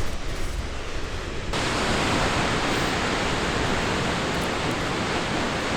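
Waterfall roaring close by as a steady rush of falling water, turning louder and brighter about one and a half seconds in.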